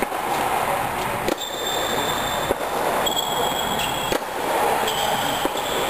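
Tennis rally: a tennis ball struck by rackets, several sharp hits roughly every second and a half, over a steady background noise. A high, steady whine comes and goes between the hits.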